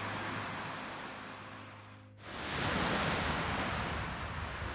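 Night insects chirping in high pulses about once a second over a steady high trill, fading out about two seconds in. A steady hiss of sea surf and wind then fades in.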